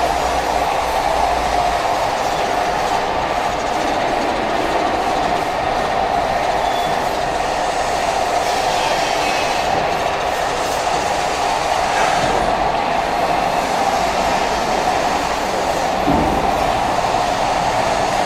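Automatic double-sided bottle labeling machine and its conveyor running, a steady, even mechanical noise as glass bottles move along the line.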